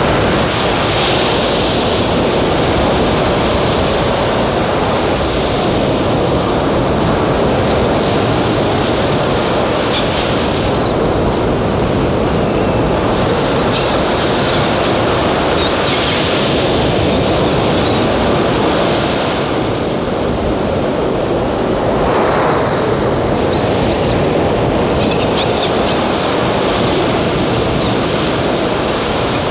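Recorded sea surf used as the show's soundtrack: a steady wash of waves that swells and ebbs every several seconds, with faint high chirps over it.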